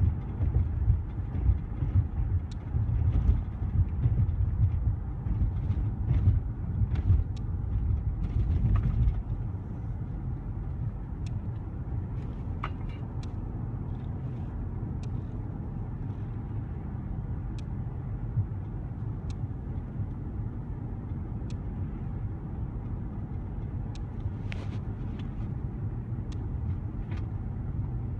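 Car driving, a steady low rumble of engine and road noise heard from inside the cabin, louder and rougher for the first nine seconds or so, then settling quieter and steadier. Faint short ticks now and then.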